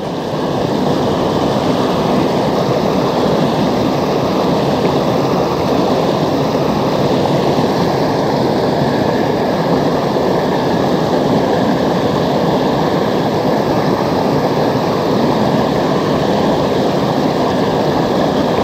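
River water rushing and splashing over a low rocky ledge close to the microphone: a loud, steady rush of white water.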